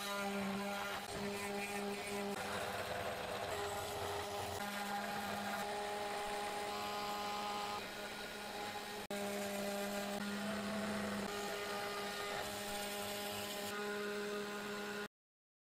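500 W CNC spindle motor running with an end mill cutting 1.5 mm aluminium sheet at 0.1 mm depth of cut as the feed rate is raised. A steady hum with higher whining tones that come and go, briefly interrupted twice; it cuts off abruptly near the end.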